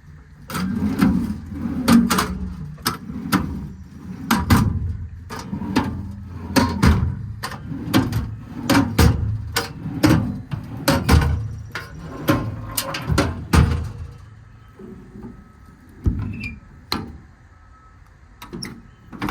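Footsteps walking at a steady pace, about two a second, followed by a few separate clunks of a service-body compartment door or latch near the end.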